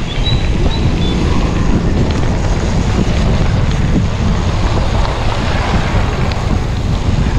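Steady low wind rumble buffeting the microphone of a bike-mounted action camera while a mountain bike rides along a dirt road.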